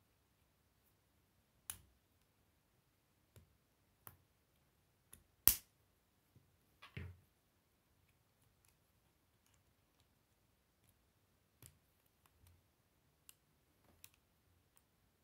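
Plastic K'nex rods and connectors clicking and snapping together as pieces are fitted by hand: scattered sharp clicks at irregular intervals, the loudest about five and a half seconds in.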